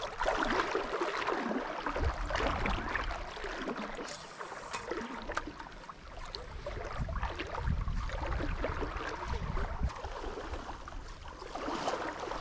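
Shallow river water trickling and lapping around a small boat, with scattered small knocks and rustles.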